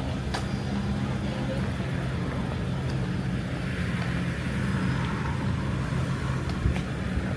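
A steady low engine hum, as from a motor vehicle running close by, over street noise.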